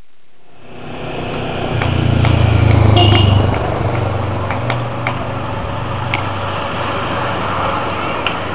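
A race motorcycle's engine approaches and passes, loudest about three seconds in. After it comes a steady rushing noise with scattered clicks as the pack of road racing bicycles sweeps by.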